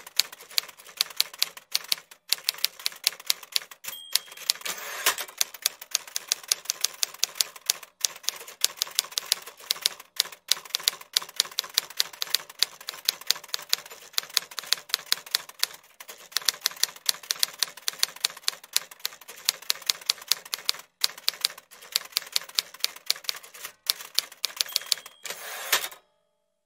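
Typewriter sound effect: quick, even keystroke clicks, about five or six a second, with short pauses. A bell rings twice, about 4 seconds in and near the end. The clicking cuts off suddenly.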